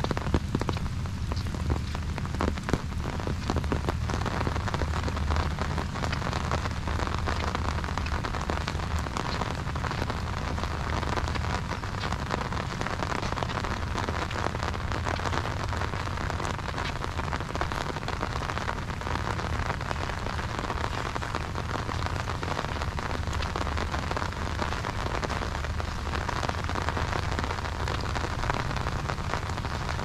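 Steady rain falling on an umbrella held overhead and on the wet ground around, a dense patter of fine drops over a low rumble.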